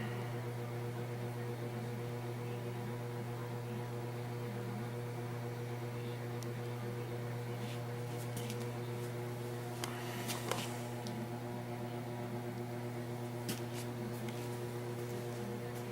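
Steady electrical hum, a low buzz with a ladder of overtones, with a few light clicks about ten seconds in and one more a few seconds later.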